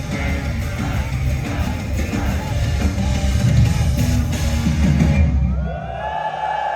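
Live rock band with drums, bass, guitars and female vocals playing the last loud bars of a song, which stops about five seconds in. An audience then cheers and screams.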